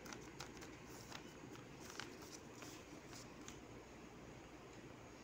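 Faint crinkling of a thin plastic sheet being smoothed down over balls of pizza dough: scattered soft crackles over the first three seconds or so, then only faint room tone.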